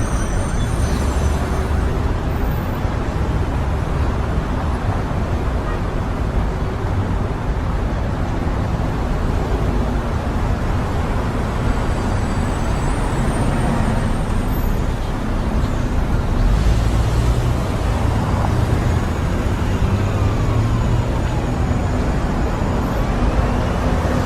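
Heavy city traffic: a steady rumble of cars, buses and trucks passing, with faint engine pitch glides as vehicles go by.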